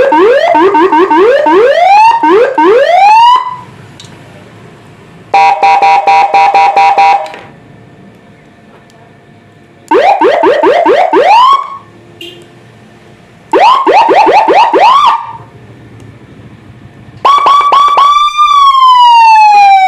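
A 12-tone electronic siren sounding through a horn loudspeaker, played in five short loud bursts, each a different tone. First come quick rising yelps, then a steady warble, then two runs of fast rising sweeps, and near the end a tone that rises briefly and then slowly falls.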